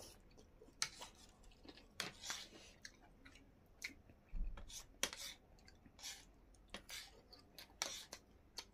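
Two people eating noodles: chewing and slurping, with irregular sharp clicks of metal forks and spoons against their plates, and a single low thump about four and a half seconds in.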